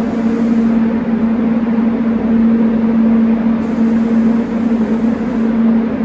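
Spray booth machinery running steadily: a constant motor hum under a loud rushing of air, with the highest hiss dropping away for a few seconds about a second in.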